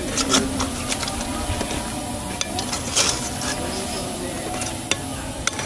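Samosas deep-frying in hot oil in a metal pan, a steady sizzle. There are a few sharp clicks as a wire skimmer knocks against the pan and turns them.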